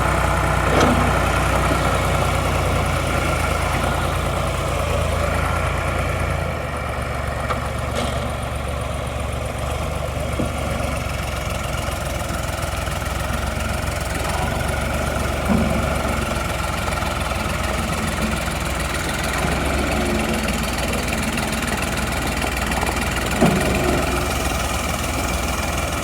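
John Deere 300 backhoe's engine running steadily at idle; its low note shifts about a quarter of the way through. Two short knocks stand out over the engine, one near the middle and one near the end.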